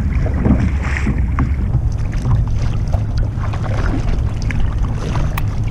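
Wind buffeting the microphone with a steady low rumble over water splashing and lapping around a kayak as it is paddled, with many small irregular splashes.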